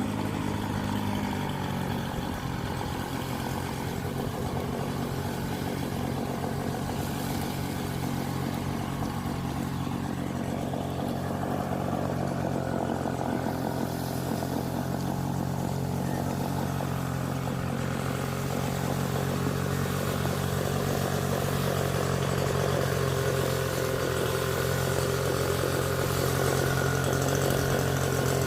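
Petrol-engine leaf blower running steadily, its small engine holding an even speed with a steady blowing hum, getting slightly louder near the end.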